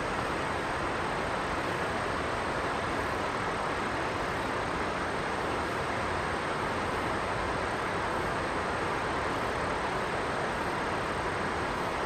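Steady, even rushing noise with no distinct events and no bird calls.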